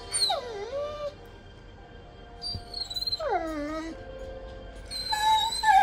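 German Shorthaired Pointer whining, three high cries that slide down in pitch, the last one held longer.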